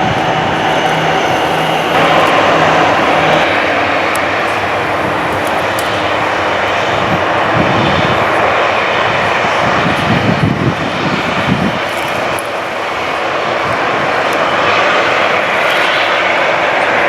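Airliner engines running with a loud, steady rush of noise.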